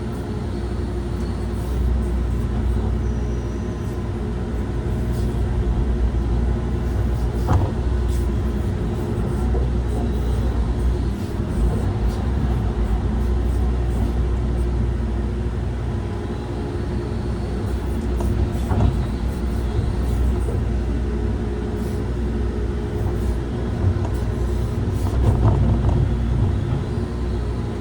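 Engine of a road-building machine running steadily under load, with a few brief knocks.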